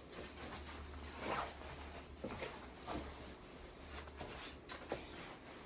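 Clothing rustling as a uniform is adjusted, with a few short rasping sweeps about a second apart and a couple of faint clicks.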